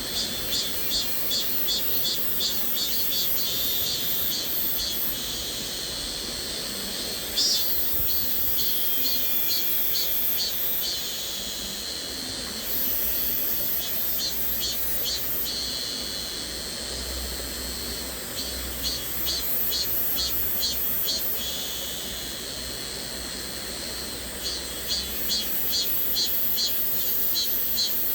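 Cicadas buzzing high-pitched in pulsing waves, rapid pulses of several a second alternating with steady stretches of drone. Underneath runs the even rush of a flowing stream.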